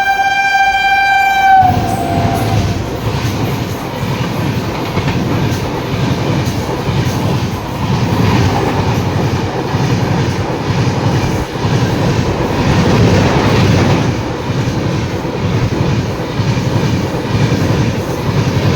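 Indian Railways train horn sounding one long steady note that stops about two seconds in, its pitch dipping as it ends. A train then passes at speed, with a loud continuous rush and a rhythmic clatter of wheels over the rail joints.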